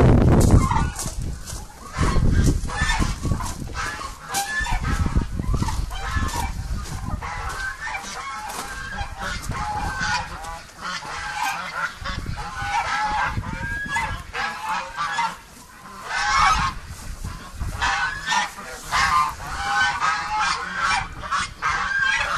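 A flock of domestic geese honking, with many short calls overlapping throughout and a louder run of honking about two-thirds of the way in.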